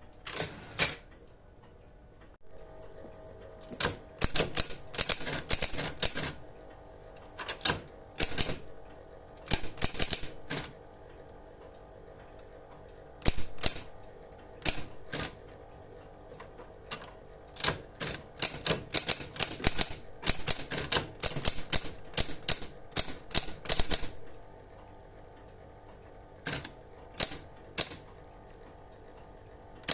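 Lectra 860 ST electric typewriter being typed on: quick bursts of key strikes with pauses between, over the steady hum of its running motor.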